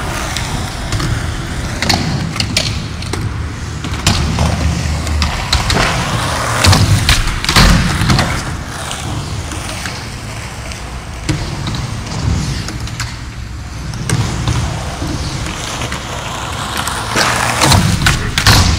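Skateboard wheels rolling on concrete, with sharp clacks of the board popping and landing about seven seconds in.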